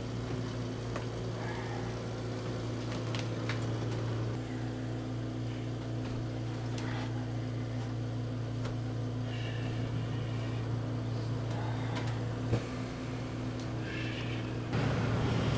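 Home oxygen concentrator running: a steady low mechanical hum with a few faint clicks, a little louder near the end.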